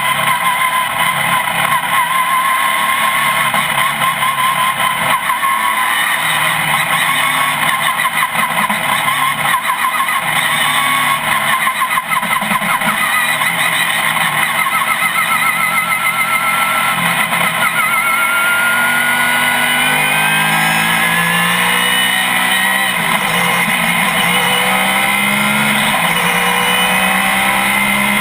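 GT-1 race car engine running loud and steady, its pitch climbing gradually over the last ten seconds as the car accelerates.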